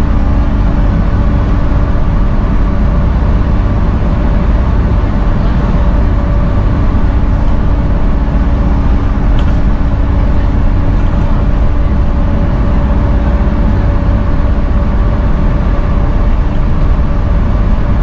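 Volvo B7TL double-decker bus under way, heard from the upper deck: the steady, loud drone of its six-cylinder diesel with a constant vacuum-cleaner-like whine on top, the 'hoover' sound, over road rumble.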